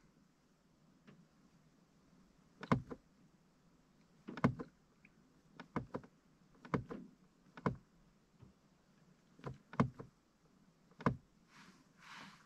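A series of sharp clicks, about nine, spaced irregularly one to two seconds apart: the trip reset button on a BMW E92 instrument cluster being pressed to step through the hidden menu. A faint brief hiss comes near the end.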